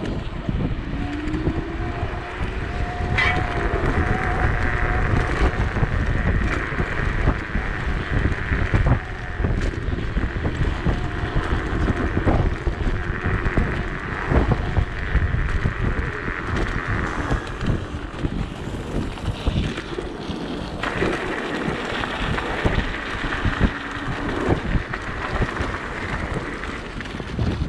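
Wind buffeting the microphone of a rider moving at speed on an electric unicycle: a constant rumbling rush, with a steady higher hiss that comes in about three seconds in.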